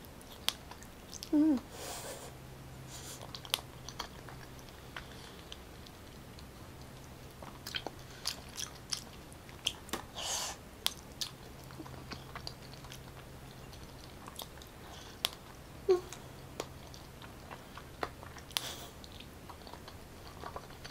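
Chewing of raw salmon sashimi, with scattered mouth smacks and clicks throughout and a few short breathy sounds.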